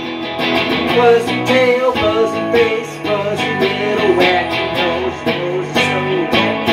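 A man singing a song with an electric guitar strummed along in a steady rhythm.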